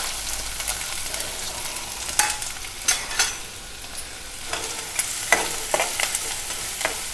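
Chopped onion, green chillies and curry leaves frying in hot oil in an aluminium pot, a steady sizzle, with the clinks and scrapes of a steel spoon stirring them now and then.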